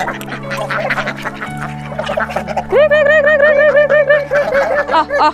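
Background music with steady sustained chords. From about halfway, a domestic duck quacks in a rapid, even run of about five quacks a second.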